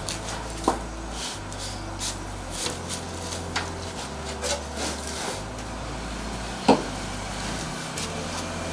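A cotton T-shirt being pulled and smoothed over a heat press's lower platen: fabric rustling and rubbing, with a few light knocks from handling, the sharpest about two-thirds of the way in.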